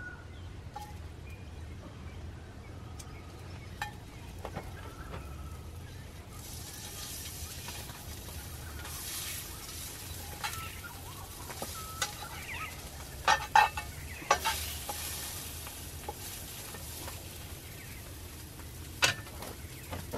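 Sausages sizzling in a frying pan over an open wood fire. The sizzle sets in about six seconds in as they go into the hot pan, with a few sharp clicks in the second half.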